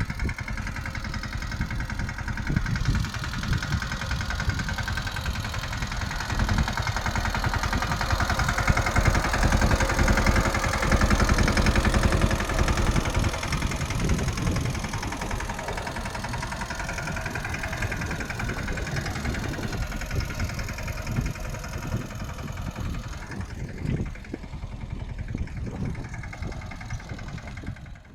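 Mahindra Yuvraj mini tractor's single-cylinder diesel engine running steadily, growing louder for a few seconds about a third of the way in before settling back.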